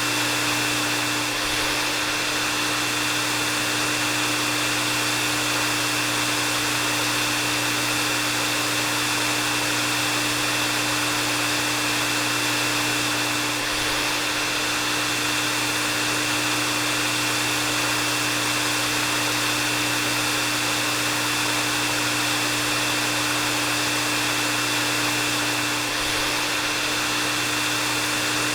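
Hair dryer running steadily: an even rush of blown air with a constant high whine and a low hum from its motor.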